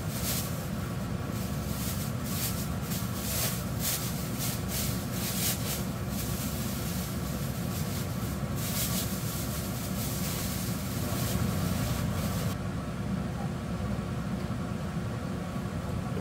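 Large stockpot of chicken and ginseng broth at a rolling boil: a steady bubbling rumble with sputtering pops, over a faint steady hum. The sharper popping drops away about twelve seconds in.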